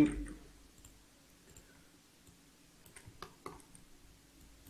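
A few faint computer mouse clicks bunched together about three seconds in, over a faint steady hum.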